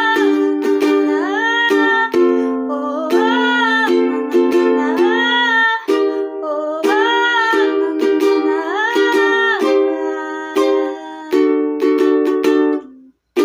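Strummed ukulele chords with a high voice singing long held notes over them. The music cuts off briefly near the end.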